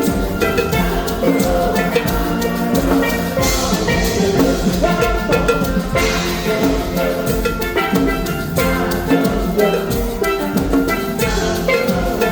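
Live band music led by double second steel pans, over drum kit and hand percussion keeping a steady calypso-style beat.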